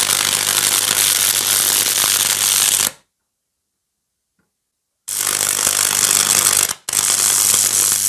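High-voltage electric arc from a microwave-oven transformer at about 2000 volts, burning through a sausage held between two electrodes: a loud, harsh buzzing crackle with a steady low mains hum underneath. It stops dead for about two seconds, then starts again about five seconds in, with a very short break near seven seconds.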